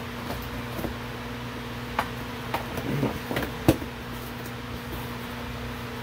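Cardboard shipping box being opened by hand: a knife slits the packing tape, then the flaps are pulled open with a few short cardboard snaps and rustles about two to four seconds in, the sharpest one last. A steady low hum runs underneath.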